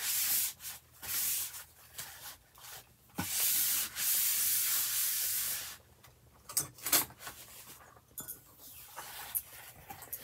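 A crumpled paper towel rubbed in brisk strokes over a sheet of paper to smooth it flat, making a scratchy hiss in several stretches, the longest about two seconds. A few light clicks and paper rustles follow near the end as the page is handled.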